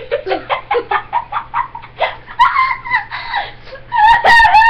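Children laughing in quick bursts, then drawn-out high-pitched squeals, loudest near the end, as they react to the taste of extremely sour candy.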